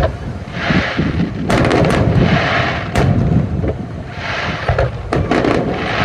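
Fireworks display: shells bursting with sharp bangs several times, with bursts of hiss between them over a continuous low rumble.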